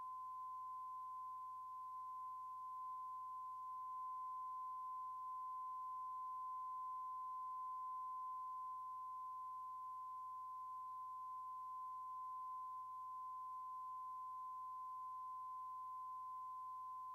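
A steady, unchanging high-pitched pure tone (a test tone) on the soundtrack, with a faint low hum beneath it.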